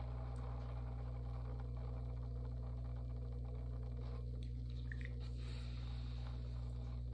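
Electric pottery wheel motor humming steadily, with soft wet squishing as a sponge is worked against the wet clay of a small cup spinning on the wheel head.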